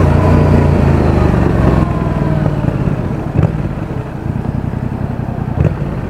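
Yamaha XSR700's parallel-twin engine and exhaust running under way, picked up by a mic in the rider's back pocket. About two seconds in, the engine note sinks and grows quieter as the bike eases off and slows. Two short knocks sound later on.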